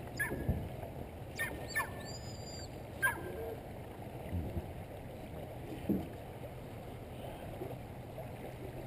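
Steady rush of river water around a drifting boat, with a few short, high chirping calls in the first three seconds, one held briefly like a whistle.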